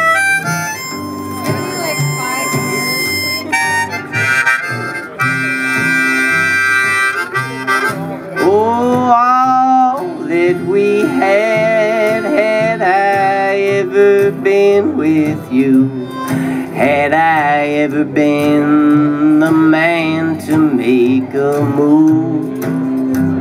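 Harmonica playing an instrumental break over strummed acoustic guitar. It holds long notes, some of which swoop up in pitch, in a string-band tune.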